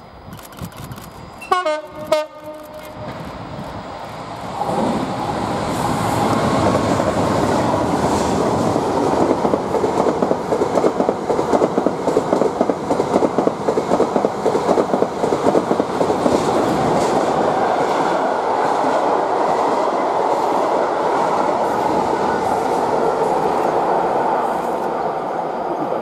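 Class 66 diesel locomotive sounds two short horn blasts about two seconds in. It then passes close, followed by a long rake of unpowered Class 701 electric units being dragged, whose wheels clatter rhythmically over the rail joints and points.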